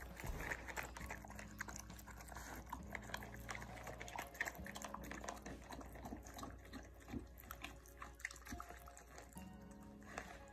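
German Shepherd and Border Collie puppies eating soft food from a plastic double bowl: faint chewing and smacking, a steady run of small irregular clicks.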